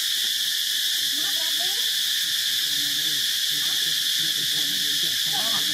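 Steady, high-pitched insect chorus. A few faint wavering calls come through it about a second in and again near the end.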